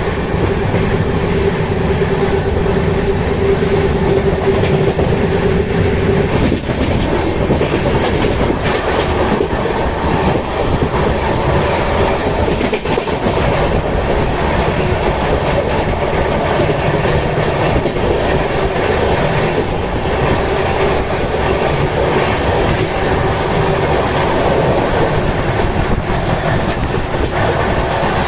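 Passenger train coach running at speed, its wheels rumbling on the rails with a clickety-clack, heard loud at the open coach door. A steady hum over the first six seconds fades after that.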